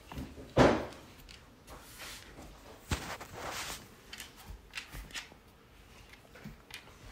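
Scattered knocks, taps and scuffs of a plank being handled on a wooden floor while a dog moves around it. The loudest knock comes about half a second in, and a sharp click with a brief scraping rush comes about three seconds in.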